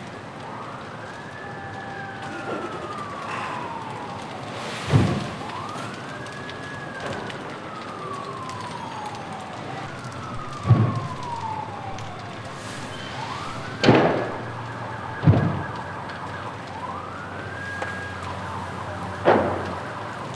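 An emergency siren wails, rising quickly and then falling slowly, over and over, over the steady rush of a large building fire. Five sharp, loud bangs from explosions inside the burning shop stand out above it.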